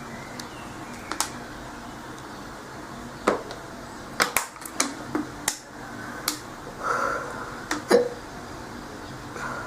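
A girl hiccupping repeatedly: a string of short, sharp hiccups at irregular intervals, a quick run of them about four to five seconds in, and the loudest near the end.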